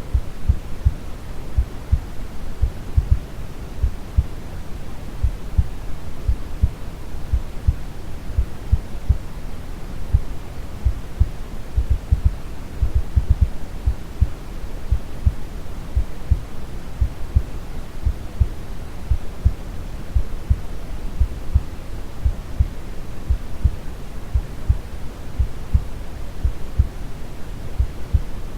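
A recorded heartbeat beating steadily in low, soft thumps over a deep, even rush of brown noise.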